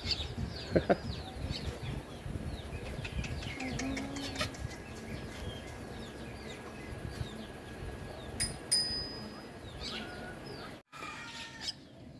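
Baby birds chirping over and over in short, quick, falling calls. About eight and a half seconds in comes a single short ringing clink, the loudest sound here.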